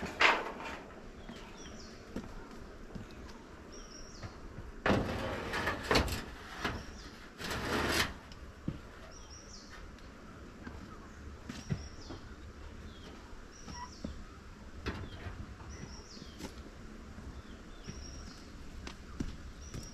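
Corrugated tin roofing sheets being slid and set down over a wooden beehive box, scraping and clattering in three bursts: at the start, around five seconds in and around eight seconds in, with lighter knocks after. A bird calls a short high note every second or two.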